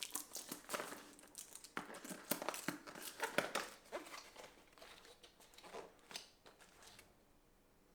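Product packaging being cut open with a small knife and pulled apart: irregular crinkling, tearing and rustling that dies away after about six seconds.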